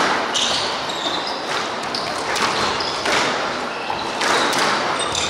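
Squash rally: the ball cracking off racquets and the court walls about once a second, echoing, with short sneaker squeaks on the wooden floor between the shots.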